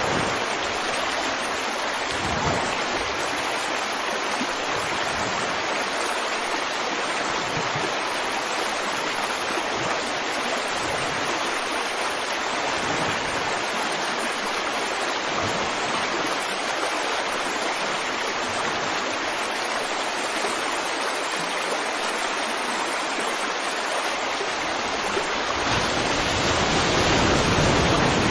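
Flowing water rushing steadily, getting a little louder and fuller near the end.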